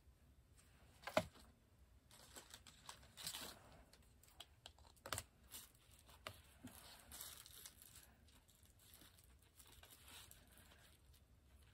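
Faint handling of die-cutting and embossing materials (paper, plastic embossing folder, metal plates and magnetic sheet): scattered small clicks and rustles, with a sharp click about a second in and another about five seconds in.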